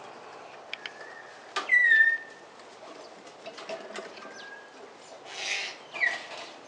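A bird's loud call that slides down into a short held whistle about two seconds in, with a shorter sliding call near the end. Scattered sharp clicks and scratching run through it, and there is a brief rustling whoosh shortly before the second call.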